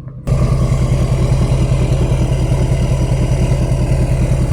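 L5P Duramax 6.6-litre V8 turbodiesel idling steadily, the sound starting abruptly just after the beginning. The engine is running normally again after a replacement fuel pump control module cured its U18A2 crank-no-start.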